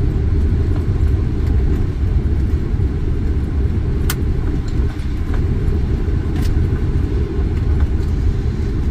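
Steady low rumble inside a Boeing 747 flight deck as the jet rolls out on the runway just after touchdown. Two sharp clicks stand out, about four seconds in and again about six and a half seconds in.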